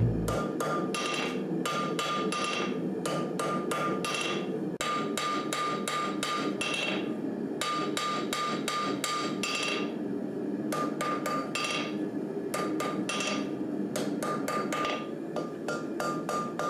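Hammer blows on steel over an anvil, a few strikes a second in runs with short pauses, each blow ringing: hand forging an old file into a knife blade.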